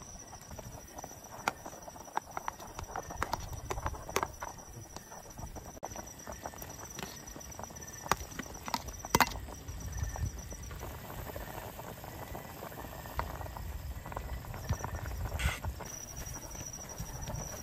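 Scattered light knocks and clicks at an irregular pace, with a louder pair about nine seconds in and another near the end. A low rumble and a faint, steady high-pitched tone sit underneath.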